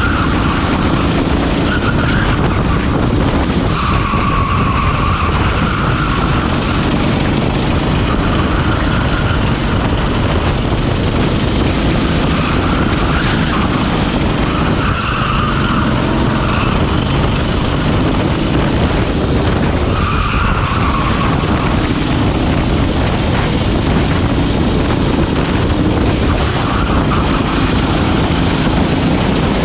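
Rental go-kart engine running at racing speed, heard from on board the kart over a steady rush of wind, with a higher squeal from the tyres coming and going several times through the corners.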